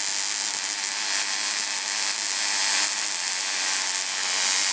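Magnifier-style Tesla coil running, with a steady buzzing hiss from the spark arcing between two of its coils.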